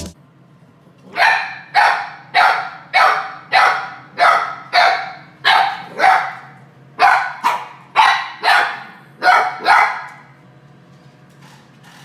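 A dog barking repeatedly, about fifteen short sharp barks at roughly two a second, stopping about ten seconds in.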